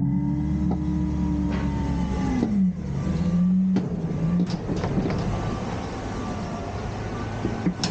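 Garbage truck engine running at raised revs, its pitch falling about two and a half seconds in and then holding lower, with a few sharp clanks along the way.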